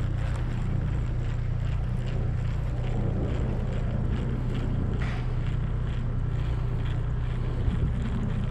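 A steady low rumble that holds at one level throughout, with a faint hiss above it.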